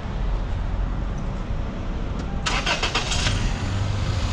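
A 1996 Toyota Corolla's 1.8 L 7A-FE four-cylinder is cranked in a quick run of clicks about two and a half seconds in, then catches and runs. The engine carries a cylinder 1 misfire (code P0301).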